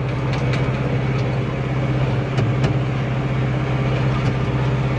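Massey Ferguson 5445 tractor's diesel engine running steadily at about 2000 rpm while pulling, with a few light knocks and rattles.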